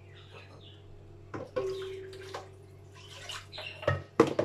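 Kitchen handling: water swishing around a bowl as it is rinsed out, with scattered clinks, one of which rings briefly, and two louder knocks near the end.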